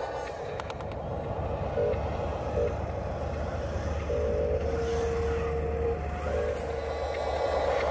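Radio-controlled model wheel loader driving, its small electric motors and gears making a low hum with short whining tones that start and stop several times; a few clicks just under a second in.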